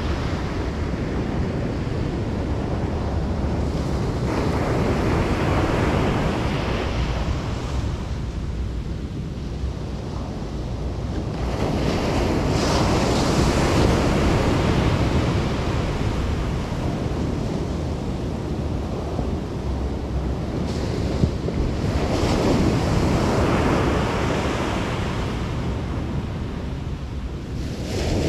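Ocean surf breaking on a beach, the wash swelling and fading as a wave comes in about every eight to ten seconds, over a steady low rumble of wind on the microphone.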